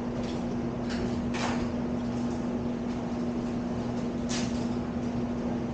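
A steady low hum over even background hiss, with a few brief soft swishing or brushing sounds.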